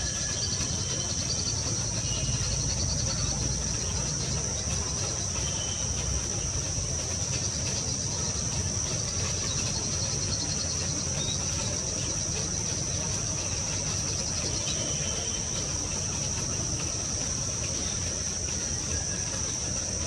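Insects shrilling in one steady, unbroken high-pitched drone, over a low background rumble. A few faint, short bird chirps come through now and then.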